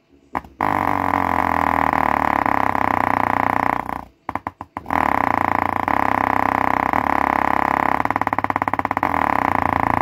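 A bare 4-inch subwoofer driver, held in the hand, played hard on bass music from an amplifier: a loud, rough, buzzing bass sound. It cuts out near the start and again about four seconds in, stuttering, and pulses rapidly near the end.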